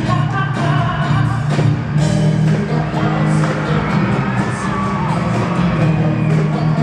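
Live pop band playing, with keyboards, guitar and drums, while a group of singers sings into microphones, recorded from the audience in an arena.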